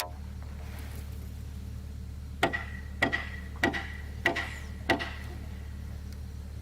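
Five hammer blows about half a second apart, each striking with a metallic ring that carries on between the blows, over a steady low hum.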